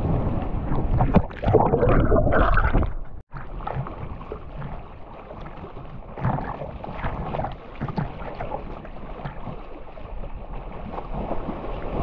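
Sea water sloshing and splashing close to the microphone, with wind on the microphone. It is loudest for the first three seconds, cuts out for an instant, then carries on quieter.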